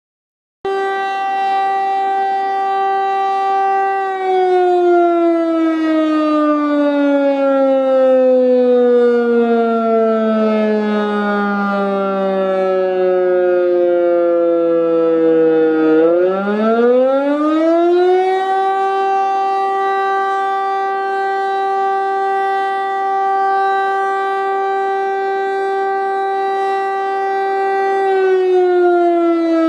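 DS977 siren sounding the fire-brigade alarm. A steady tone, about four seconds in, slowly sinks in pitch for some twelve seconds, then climbs quickly back to full pitch in two or three seconds. It holds there for about ten seconds and begins sinking again near the end.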